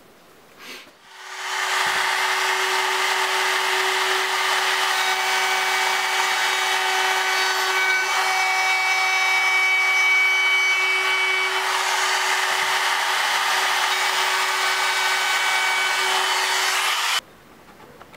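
Compact trim router spinning up about a second in and running at a steady high-pitched whine as it cuts a small spalted beech disc, then stopping suddenly near the end.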